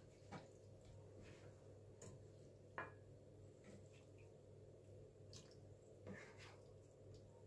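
Near silence: a faint steady low hum of room tone, with a few faint light clicks.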